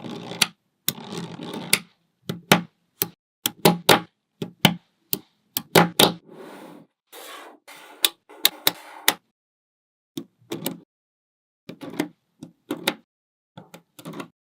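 Small magnetic balls clicking sharply as they snap together, irregular single and doubled clicks with short stretches of softer rattling between them. The clicking pauses for about a second past the middle.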